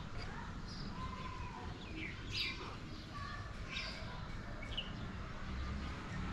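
Birds chirping: short, high calls every second or so, some sliding in pitch, over a steady low rumble.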